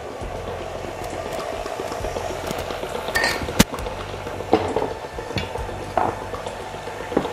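Stand mixer running steadily, beating a liquid yeast batter, with a few sharp clicks and knocks of utensils and glassware about halfway through.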